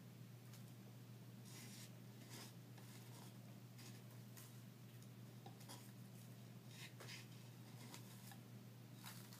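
Faint paper rustling from a small paper packet being handled and shaken over a bowl as dried herbs are tipped out: a string of short, scratchy rustles spaced about a second apart.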